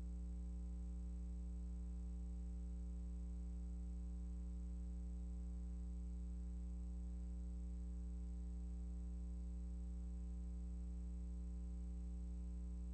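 Steady low electrical hum with its overtones and a faint thin high whine above it, unchanging: playback and transfer noise on the soundtrack of a silent film.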